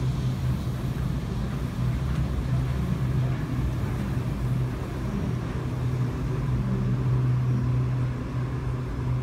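Otis Hovair air-cushion, cable-drawn people-mover tram gliding into the station and up to the platform screen doors: a steady low hum over a rumble.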